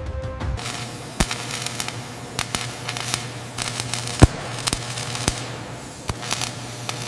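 An angle grinder cuts out just after the start. Then a welding arc crackles with sharp, irregular pops over a steady hum, the loudest pop about four seconds in.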